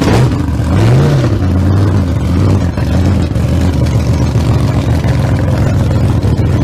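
A loud engine, revved briefly about a second in, then idling with a rapid, uneven pulse.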